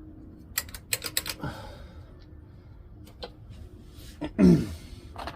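Small metal clicks and clinks from hand tools and mounting bolts as a carburetor is fitted to a snowblower engine, a quick run of them about a second in and a few more scattered after. About four and a half seconds in, a short grunt-like voice sound.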